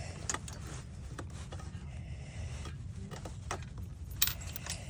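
Scattered small clicks and light knocks from hands working the parts of a sun umbrella's tilt mechanism, with one sharper click about four seconds in, over a low steady hum.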